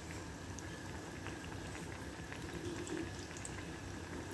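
Oil bubbling steadily around khajoor (sweet maida dough pieces) deep-frying on a low flame, with faint scattered crackles.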